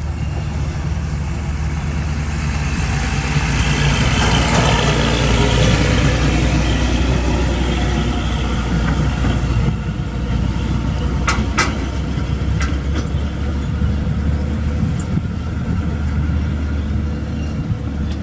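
Heavy truck engine running as the truck drives on a dirt road, with a deep steady hum that swells about four to six seconds in. A few sharp clanks come about eleven seconds in.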